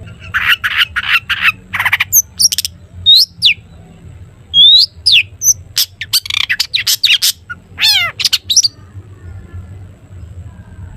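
Long-tailed shrike (cendet) singing a busy, varied song of harsh rasping notes mixed with short falling whistles and a quick falling trill. The singing stops about nine seconds in, leaving a low hum.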